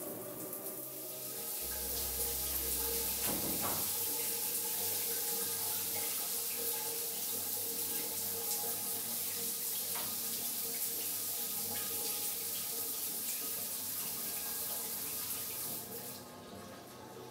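Water running steadily from a wall-mounted tap in a tiled bathroom, stopping near the end as the tap is turned off.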